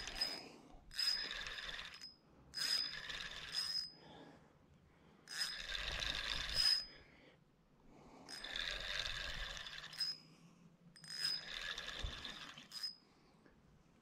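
Spinning reel being cranked in about six bursts of a second or so with short pauses between. Each is a whirring of the reel's gears with a faint metallic ring, taking up slack line on a hooked trout.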